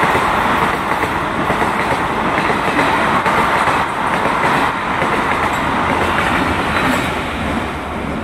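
Passenger train running through at speed close by: a loud, steady rumble of wheels on rails with clickety-clack from the rail joints, easing off near the end as the last vehicle goes past.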